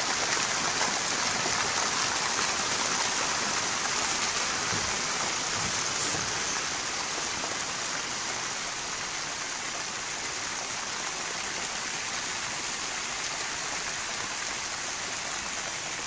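Rain falling steadily, a little heavier at first and easing slightly after the first several seconds.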